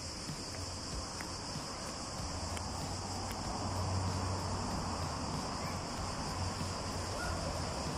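A steady, high-pitched insect chorus that does not change, with a low rumble underneath.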